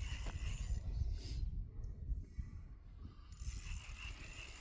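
Fishing reel on an ice-fishing jig pole ticking faintly during the fight with a large fish, over a steady low rumble.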